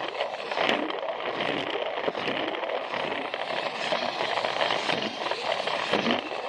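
Plarail toy train's battery motor and gearbox running with a steady whir, its plastic wheels rattling along plastic track. A regular low pulsing and a few sharp clicks sound through it.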